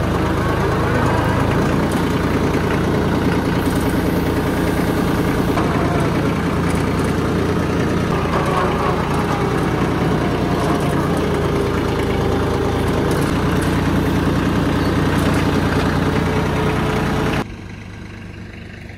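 Vehicle engine running steadily while driving, towing a trailer loaded with pine logs. The sound cuts off abruptly near the end.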